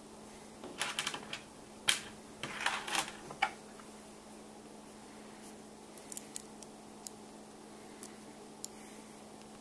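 Small metal and plastic pieces of a nut-and-bolt robot construction kit clicking and rattling against each other as they are handled and fitted together: a cluster of clicks in the first few seconds, then a few single ticks later on.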